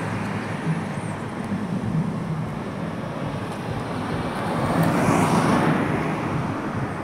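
Road traffic: a steady low hum with a car passing by on the street, its noise swelling and fading, loudest about five seconds in.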